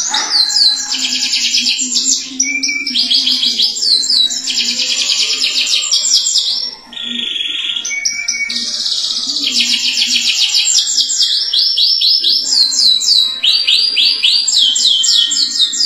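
Domestic canary singing long, fast rolling trills, each a rapid run of quick notes, moving from one trill to the next every second or so. There is a short break about seven seconds in.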